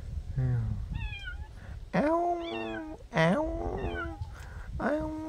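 A cat meowing three times, each meow long and held at a steady pitch for about a second.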